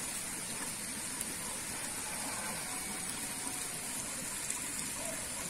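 Steady rush of running water pouring into a fish pond, with no breaks or changes.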